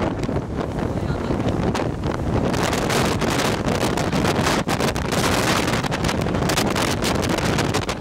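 Typhoon wind battering the microphone in loud, gusting blasts, growing harsher and hissier about two and a half seconds in.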